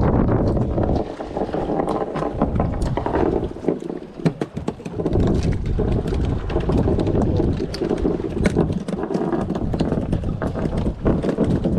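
Wind buffeting the microphone aboard a fishing boat at sea, with water moving against the hull and scattered light knocks and clicks.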